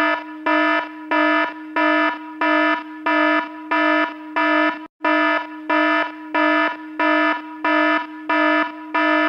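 Electronic alarm-like beeping: a buzzy, pitched tone pulsing on and off about one and a half times a second, with a brief break about five seconds in.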